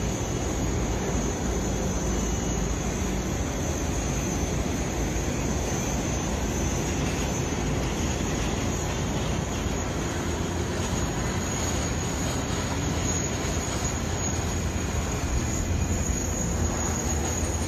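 Steady jet airliner noise on an airport apron: a continuous rushing hum with a thin high whine over it, the low rumble growing a little stronger near the end.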